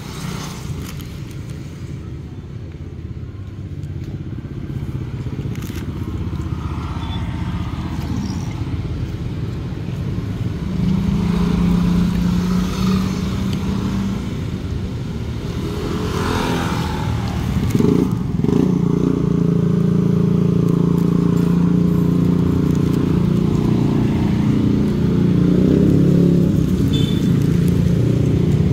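Street traffic: a motor vehicle engine running close by, a steady low drone that grows louder about halfway through.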